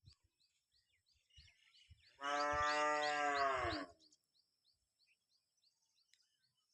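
A dog giving one long, steady howl lasting about a second and a half, dropping slightly in pitch as it ends. Faint short high chirps repeat about twice a second behind it.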